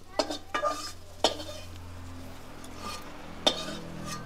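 Metal spatula clinking and scraping against a metal kadai as fried potato and stalk pieces are scooped out onto a metal plate: a few sharp clanks, the loudest about a second in and again near the end.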